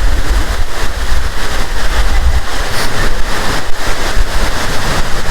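Latourell Falls pounding onto the rocks at close range: a loud, steady rush of falling water, with a heavy low rumble underneath from wind and spray buffeting the microphone.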